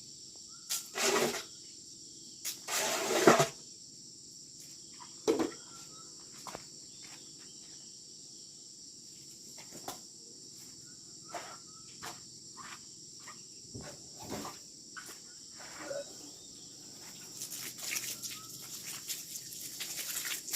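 Insects droning steadily in a high pitch, with scattered short knocks, scrapes and rustles of handling close by; the loudest of these come in a cluster about one to three seconds in.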